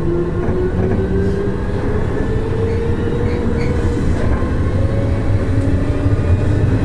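Nishitetsu 5000 series electric train under way, its traction motors and gears whining in a slowly rising pitch as it picks up speed, over a steady rumble of wheels on rail.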